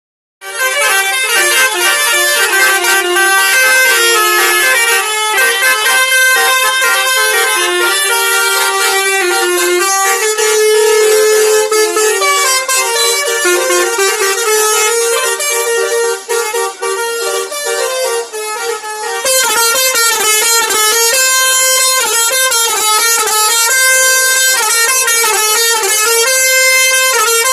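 Tour bus 'telolet' multi-tone air horn playing a fast tune of changing notes, several pitches sounding together. The tune breaks up into short choppy notes about two-thirds of the way through, then carries on.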